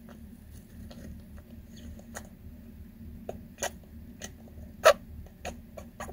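Golden hamster hiccuping: a run of small sharp clicks about two a second, one much louder about five seconds in. The hiccups are a sign of breathing trouble, which the owner suspects comes from the soft paper bedding.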